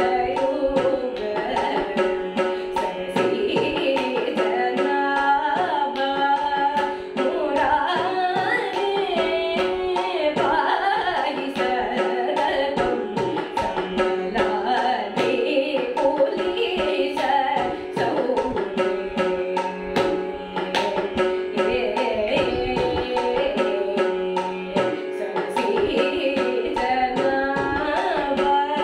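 A woman's voice singing a Carnatic kriti, her melody sliding and ornamented over a steady drone. A tabla beat keeps an even rhythm underneath.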